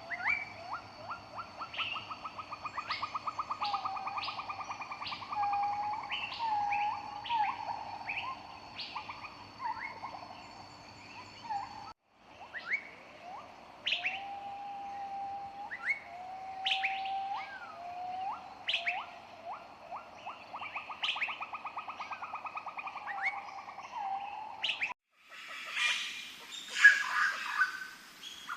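Birds calling: a fast rattling trill, short rising whistles and sharp chirps over a thin steady high tone. The sound cuts off abruptly about 12 seconds in and again near 25 seconds, where a harsher, noisier chorus of calls takes over.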